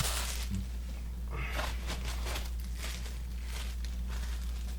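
Soft rustling and light handling noise as tools are taken from a tool set's case, over a steady low hum.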